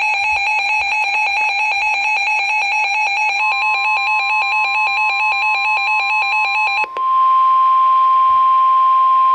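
A weather radio's alert alarm beeps rapidly in two pitches. About three and a half seconds in, the NOAA Weather Radio's steady 1050 Hz warning alarm tone joins it. The beeping cuts off about seven seconds in, and the steady tone carries on alone, the signal that a warning message is about to be broadcast.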